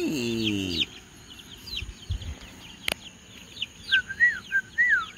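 Chicks peeping: many short, high, falling cheeps repeated throughout, with a single sharp click near the middle. Near the end come a few louder, lower calls that rise and fall.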